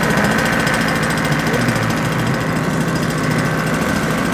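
Engine of a large 1:3.3 scale RC de Havilland DH.82A Tiger Moth model aircraft running steadily on the ground, held back by hand before takeoff.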